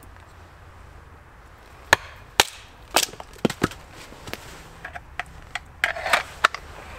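Sharp wooden cracks and knocks, about a dozen at irregular spacing starting about two seconds in, as sticks or firewood are snapped or chopped.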